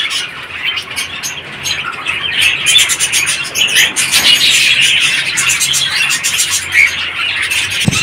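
Many small parrots in an aviary chattering and chirping at once, a dense unbroken chorus of short, high chirps.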